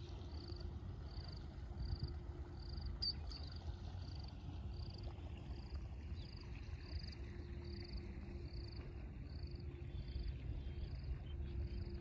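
Small high-pitched chirps repeating evenly, about three every two seconds, typical of an insect calling, over a steady low rumble of wind on the microphone.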